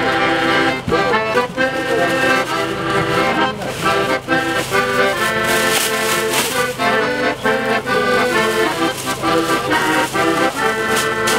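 Accordion music: chords change in quick steps over a steady beat.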